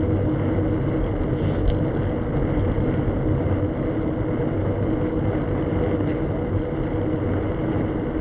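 A vehicle driving at a steady cruising speed: a constant engine drone mixed with wind and road noise.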